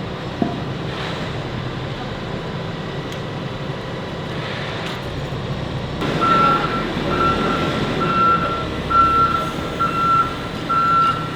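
Heavy construction machine's diesel engine running steadily. About halfway through, a reversing alarm starts beeping, a little more than once a second, as the machine's noise grows louder.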